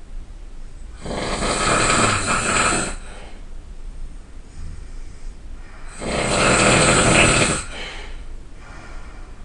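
A person snoring loudly: two long, rasping snores about five seconds apart, with quieter breathing between them.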